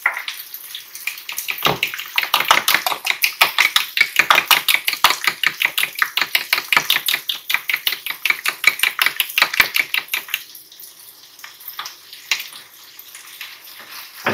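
Metal fork beating egg yolks and milk in a plastic bowl: a fast, even run of clicking strokes, several a second, that stops about ten seconds in, followed by a few light taps.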